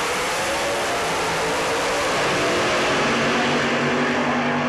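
Two nitro-burning funny cars running side by side down the drag strip at full throttle, their supercharged V8 engines making a loud, continuous, harsh noise.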